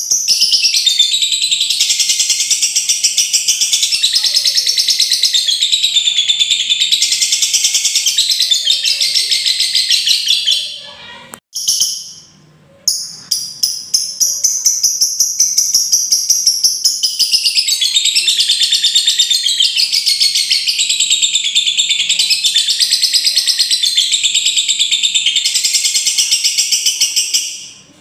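Lovebird ngekek: a long, very rapid, high-pitched chattering trill, the challenge song that provokes other lovebirds. It runs in two long bouts, breaking off at about ten seconds and resuming a couple of seconds later, then stopping just before the end.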